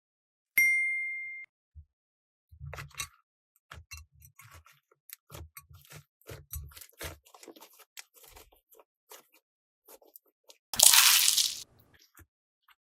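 A single bright ding sound effect rings and fades, then many small clicks, taps and light knocks of plastic toys and containers being handled. Near the end comes one loud, short squishy burst of noise.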